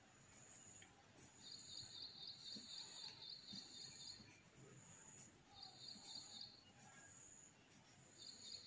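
Near silence with a faint, high insect trill coming in bouts of one to three seconds.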